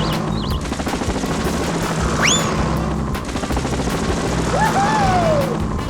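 Background music with short cartoon sound effects over it: a quick rising whistle about two seconds in and a falling, wavering glide near the end.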